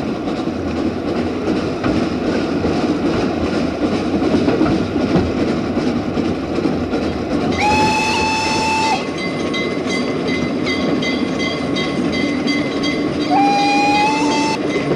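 Prussian T 3 steam tank locomotive running along the line with a steady rushing noise. Its steam whistle blows twice, each blast about a second and a half long with the pitch rising slightly at the start: once about halfway through and again near the end.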